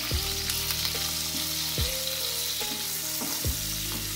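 Onion chunks and green capsicum sizzling steadily in hot oil in a nonstick kadhai while a wooden spatula stirs them, with a few light taps of the spatula on the pan. The vegetables are being sautéed lightly, not browned.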